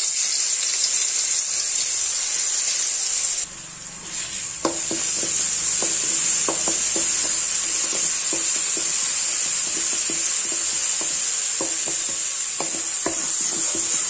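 Crushed garlic, ginger, shallots and green chilli sizzling as they drop into hot coconut oil in a wok, a steady frying hiss that starts suddenly. From about four seconds in, a wooden spatula stirs the paste and taps against the pan.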